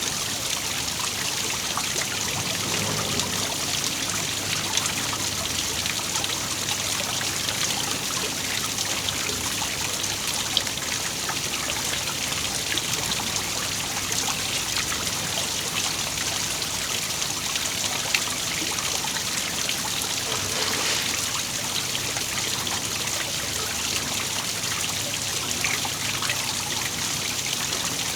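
A waterfall: water falling and splashing steadily in an even hiss, with many small splashy ticks through it.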